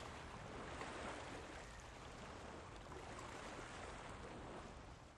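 Small waves washing in over rocks at the water's edge, a faint, steady rushing of water.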